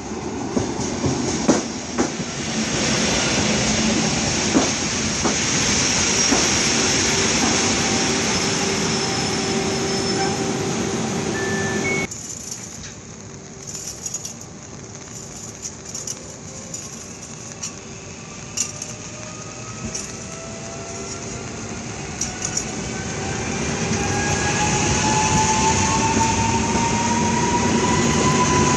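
An EN57FPS electric multiple unit runs into the platform with steady running noise that drops suddenly about twelve seconds in as it comes to a stand. After a few clicks, its traction motors set up a rising whine as the train pulls away and gathers speed.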